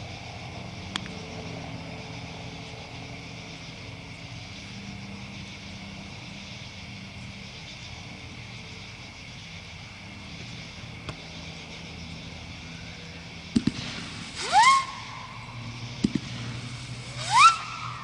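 Steady low background noise, then near the end a 500-gram fireworks cake starts firing: sharp launch thumps, each followed by a loud whistle that rises in pitch, twice.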